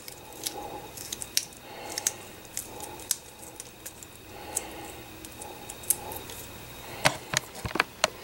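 Irregular light clicks and taps of chopped green onion pieces being moved and dropped by hand onto a dry wok, with a few louder knife taps against the wok near the end.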